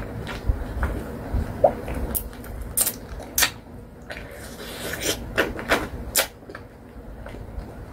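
Close-miked eating sounds: a scattered run of sharp crunches and crackles as a crunchy snack in a wrapper is bitten and eaten, thinning out near the end.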